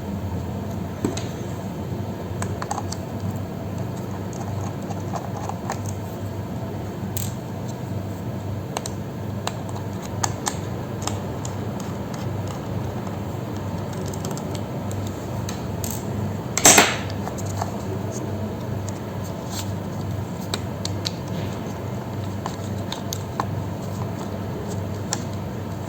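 Small sharp clicks and taps of screws, tools and plastic parts being handled while a laptop is taken apart, with one louder clatter about 17 seconds in, over a steady low hum.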